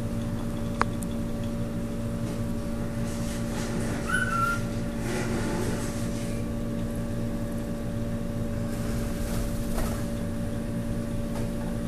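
Steady mechanical hum of running reef-aquarium equipment, with one sharp click about a second in and a brief high chirp around four seconds in.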